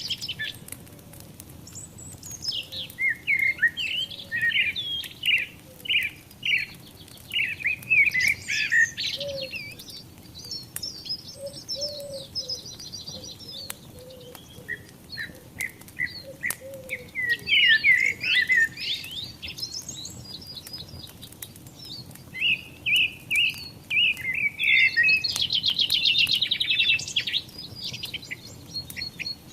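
Songbirds singing: repeated chirping phrases, with fast trills about a third of the way in and again near the end. Under the song, a wood fire crackles with scattered faint snaps.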